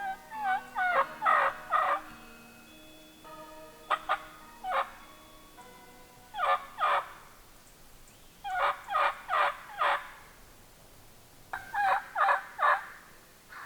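Wild turkey gobbling: five gobbles a couple of seconds apart, each a quick rattling run of notes.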